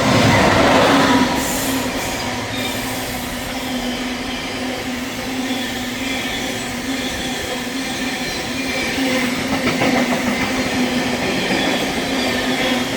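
Diesel-hauled freight train running through the station. It is loudest as it first comes by, then the wagons roll past with a steady rumble and some clatter of wheels over rail joints.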